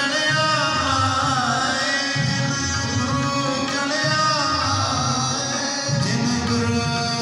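Sikh kirtan: a man singing a devotional hymn with a gliding melody over harmonium, with low hand-drum strokes keeping a steady beat about once a second.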